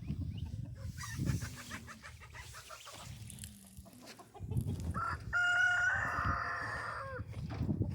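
A rooster crows once, starting about five seconds in: a long, held call of about two seconds that drops at the end. Low thumps and rumbling come at the start and near the end.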